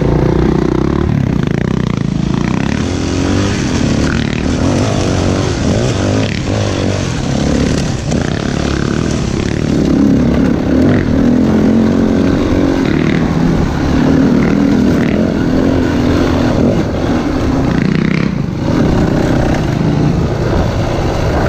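Dirt bike engine running hard on a rough bush trail, its note rising and falling as the throttle opens and closes, with clatter and scrapes from the bike over the ground.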